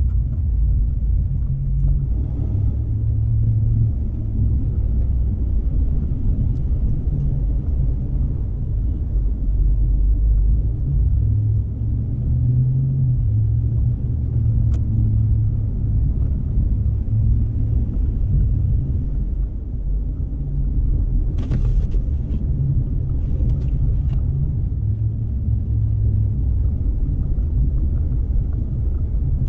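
A car driving on a snowy highway: a steady low rumble of road and engine noise. A few brief hissing sounds come in about two-thirds of the way through.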